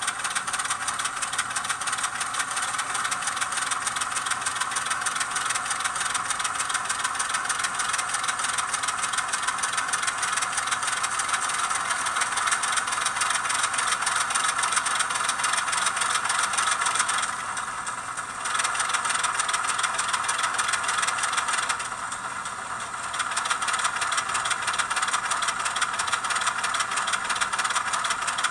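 ESU LokSound sound decoder playing a diesel switcher's engine sound through a tiny 8 mm x 12 mm speaker in an N-scale Atlas VO1000 locomotive as it moves slowly. The engine runs steadily and sounds thin, with hardly any bass. The level dips twice briefly in the second half.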